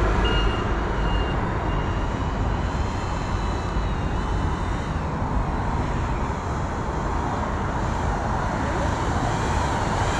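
GEPRC CineLog35 FPV quadcopter's motors whining in flight, the pitch wavering up and down as the throttle changes, faint over a steady low rumble.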